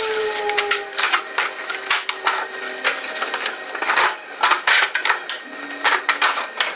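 Plastic crates and glass bottles clattering as they are handled: a fast, uneven run of knocks and clinks, with a faint falling whine in the first second.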